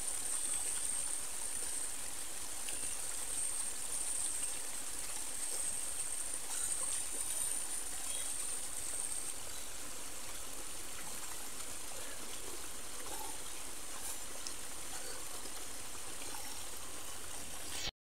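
Small, clear stream flowing over stones: a steady trickling rush of water. It cuts off suddenly just before the end.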